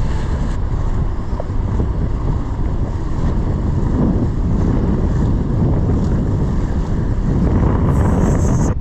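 Wind buffeting the microphone on a boat under way, with a steady rush of wind and water. A brief higher hiss comes in just before it cuts off at the end.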